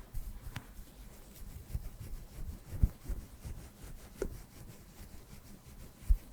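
Soft brush bristles rubbing and sweeping over a microphone, with a few dull low bumps. The loudest bumps come about three seconds in and near the end.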